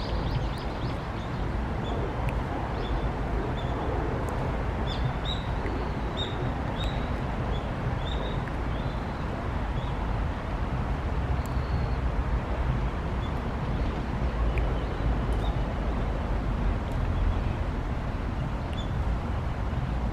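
Outdoor ambience: a steady low rumble with short, high bird chirps scattered through the first half and once or twice later.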